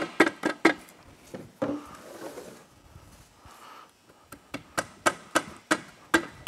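Sharp clicks and knocks of hand tools and parts on the aluminium crankcase of a Polaris RZR 900 XP engine being taken apart. A few come in the first second, then a quicker run of about a dozen taps from about four seconds in.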